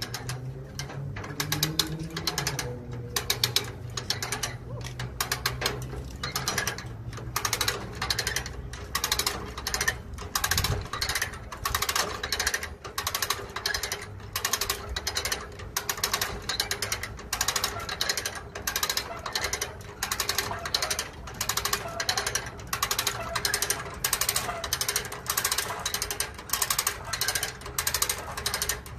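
Hand-cranked come-along cable winch being ratcheted, its pawl clicking in quick runs with each stroke of the handle, roughly once a second. It is under load, drawing a zero-turn mower up onto a trailer.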